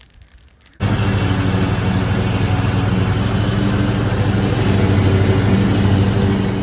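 A motor or engine running steadily with a low hum, coming in suddenly about a second in and stopping abruptly at the end.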